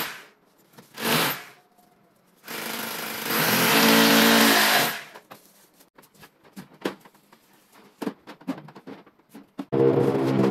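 A power tool running in separate bursts: a brief one about a second in, a longer one of about two and a half seconds in the middle, and another starting near the end. Scattered knocks and clicks come in between.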